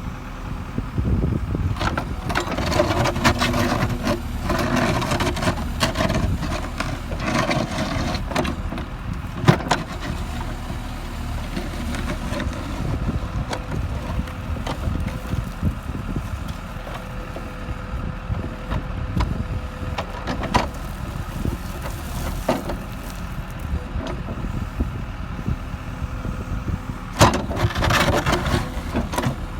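John Deere backhoe loader's diesel engine running steadily with a constant whine, while its bucket scrapes and breaks up day-old concrete. There is a stretch of grinding and crunching in the first several seconds, sharp knocks now and then, and a burst of knocks near the end.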